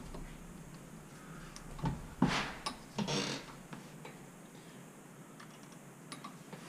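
A few light clicks and scrapes of small metal parts being handled, clustered about two to three seconds in.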